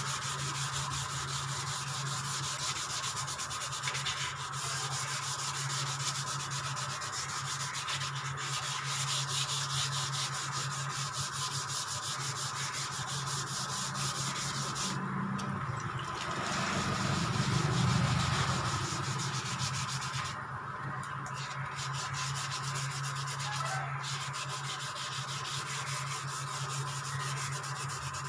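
Sanding of a scooter's body panel: continuous rough rubbing with a few brief breaks, over a steady low hum.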